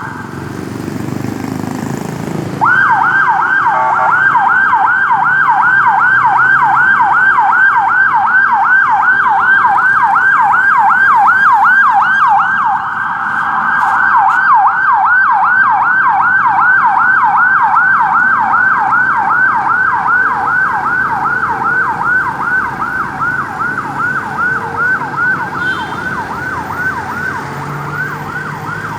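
Ambulance electronic siren on a fast yelp: rapid rising sweeps, about three to four a second. It cuts out briefly at the start, starts again loudly about three seconds in, and slowly fades over the last several seconds.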